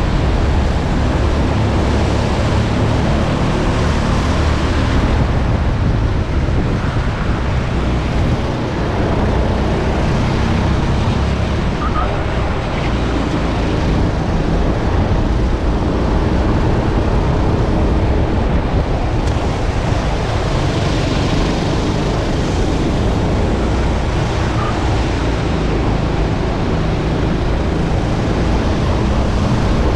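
Go-kart engine running at racing speed, its drone mixed with heavy wind buffeting on the onboard microphone.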